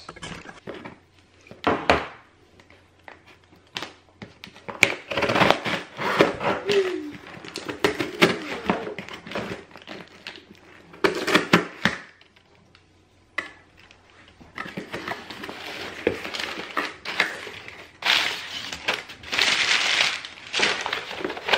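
A cardboard shipping box being opened: scissors slitting the packing tape, then the flaps scraping and crinkling and the box knocking as it is handled. It comes in several bouts of rustling and clicks, with a quiet gap a little past the middle.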